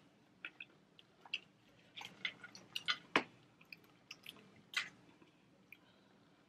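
Boiled crawfish being cracked and peeled by hand, with scattered sharp shell clicks and wet squishes, and some chewing. The loudest cracks come a little after three seconds and near five seconds.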